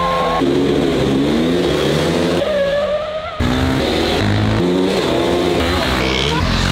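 Several KTM race motorcycles' engines revving hard, pitch climbing and dropping through the gears. The sound changes abruptly a few times.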